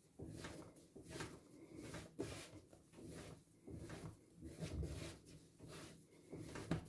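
Hands kneading a soft yeast dough on a floured wooden board: soft pressing and thudding strokes, about one a second.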